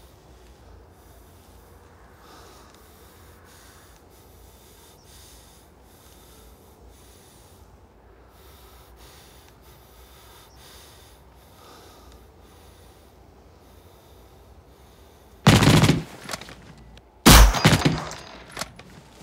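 Two loud handgun shots about two seconds apart, near the end, each ringing out afterwards, after a long quiet stretch.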